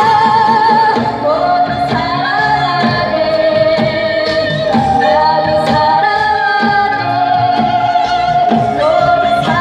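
Amplified Korean fusion-traditional music: a woman sings long, wavering held notes into a microphone, with daegeum flute, haegeum fiddle and a drum keeping a steady beat.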